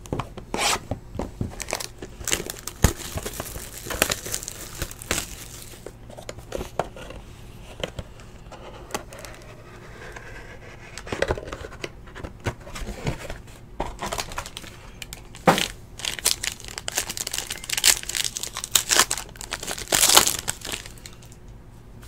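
Foil trading-card pack wrapper being crinkled and torn open by hand, then cards handled, a run of irregular crackles and sharp rustles that is busiest near the end.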